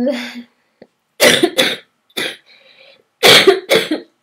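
A woman's coughing fit: about five loud, hard coughs in quick clusters, with breaths drawn in between, right up close to the microphone.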